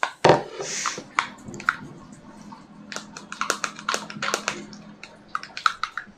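Hot water being dispensed for tea, a steady low hum that stops about five and a half seconds in, while a small plastic cup crinkles and clicks as it is handled.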